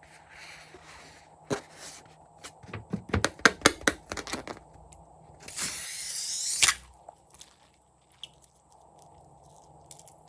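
Crunchy slime being squeezed and worked by hand: a quick run of crackles and pops, then a hissy, rustling burst lasting about a second, about five and a half seconds in.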